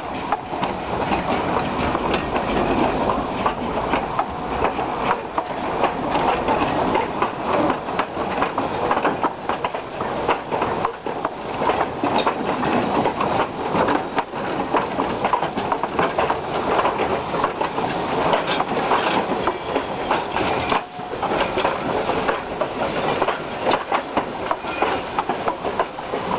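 Narrow-gauge train running along the track, its wheels clattering steadily over the rails, with a brief lull about twenty seconds in.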